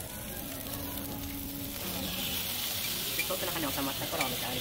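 Hamburg steak sizzling on a hot iron plate. The sizzle swells about two seconds in as sauce is spooned onto the plate and steam rises.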